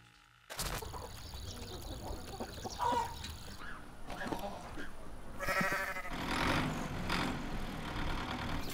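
A goat bleats once, a short call about halfway through, over steady farmyard ambience.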